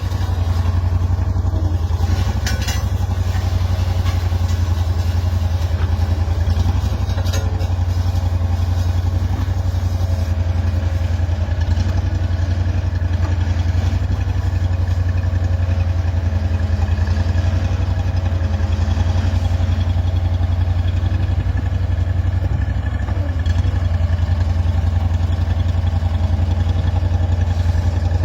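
Small tandem vibratory road roller's diesel engine running steadily, with a strong low hum and a fast, even pulse.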